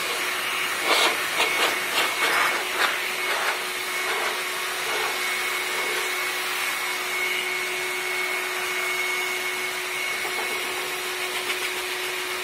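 Shop vac running as a blower, its hose blowing water off a car's door panel: a steady rush of air with a high motor whine. A few brief louder bursts come between about one and three and a half seconds in.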